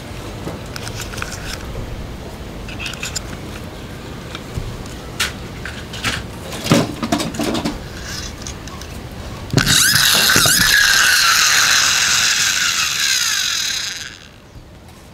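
Plastic toy cars clicking and knocking as they are handled and set down on a wooden table. Then, near ten seconds in, a toy monster truck's geared wheels are spun up: a loud plastic gear whir that slowly falls in pitch and dies away over about four seconds.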